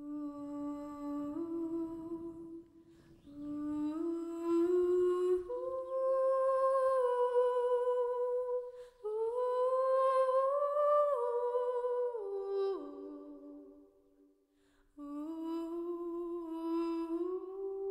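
A woman's voice humming a slow, wordless tune in long held notes that step up and down, in phrases with short pauses between them.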